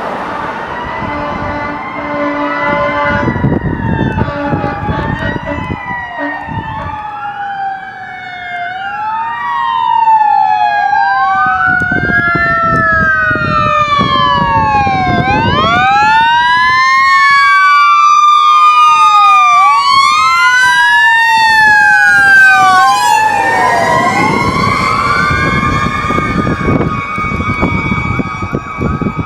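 Fire engine and ambulance sirens sounding together: electronic sirens wailing up and down every couple of seconds, overlapped by a Federal Q mechanical siren that coasts down in a long falling tone, winds back up and holds at its peak, twice. An air horn sounds in the first few seconds.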